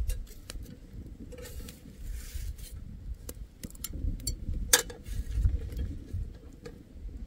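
Metal tongs clicking and scraping against a wire grill while a foil-wrapped fish is shifted on it: a string of sharp light clicks and knocks, the loudest about two thirds of the way in, over a low rumble.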